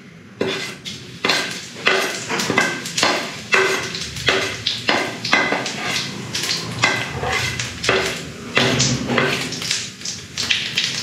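Steel spoon clinking against a steel plate and the rim of a steel kadai as cumin seeds are scooped and tipped into hot mustard oil, two or three sharp clinks a second. The seeds sizzle in the hot oil underneath.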